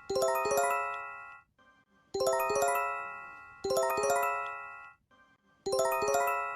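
Japanese emergency alert chime: a quick rising run of bell-like tones that ring out and fade. The run repeats every couple of seconds in a looping pattern, as on a phone's earthquake or emergency warning alarm.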